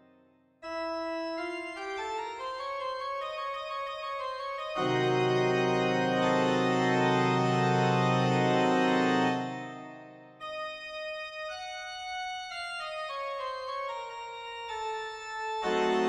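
Background organ music: a run of notes climbing, a loud held chord in the middle, a fade, then notes stepping downward.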